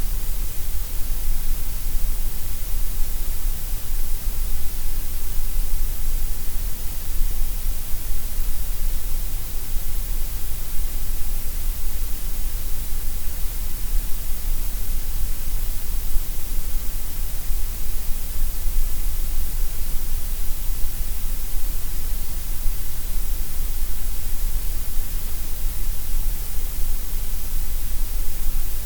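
Steady, unbroken white noise, a uniform hiss with no change.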